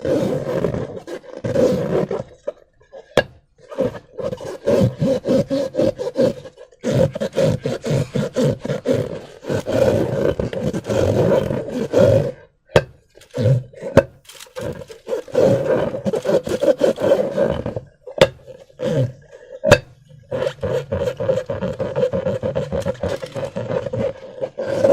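Latex balloons filled with slime being rubbed and squeezed by hand, making rough rubbery squeaking in repeated bursts of a second or two, with a few sharp clicks in between.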